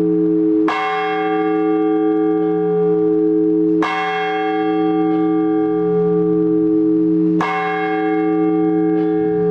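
A single Orthodox church bell struck at a slow, even pace: three strokes about three and a half seconds apart, each ringing on into the next. This measured one-bell ringing is the blagovest that calls the faithful to the liturgy.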